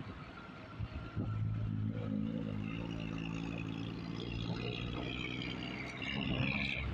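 Road traffic heard while riding on a highway: a vehicle engine runs steadily, getting louder about a second in, over the rush of traffic, with a higher rising engine or tyre sound near the end.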